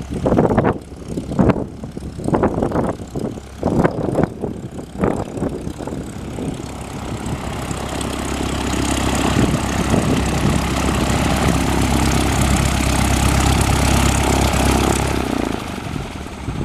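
Cessna 172S Skyhawk's four-cylinder Lycoming engine and propeller at takeoff power, growing louder about six seconds in, holding strongest for several seconds, then fading near the end as the plane climbs away.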